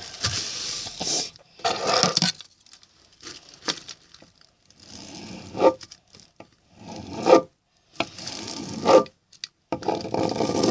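Pocket knife blade sawing and scraping through cardboard in about half a dozen rough, uneven strokes with short pauses between them.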